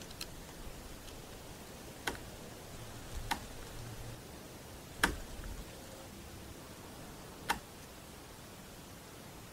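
Four sharp clicks or knocks, at irregular gaps of about one to two and a half seconds, over the steady hiss of a field recorder. The loudest comes about halfway through, and a couple of fainter ticks come at the start.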